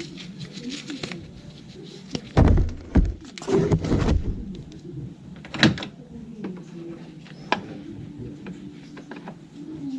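Clunks and knocks of the air filter box cover being taken off a Honda Dio scooter: a few loud thumps between about two and six seconds in, then lighter clicks.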